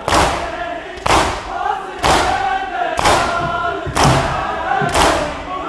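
A large crowd of men doing matam: chest-beating in unison, sharp slaps landing together about once a second with a hall echo after each. Many voices chant the noha between the blows.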